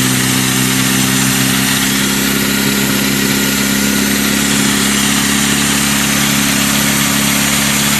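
Gasoline engine idling steadily with its choke on, its pitch holding even; the owner guesses its carburetor is stopped up and there may be dirt in the fuel tank.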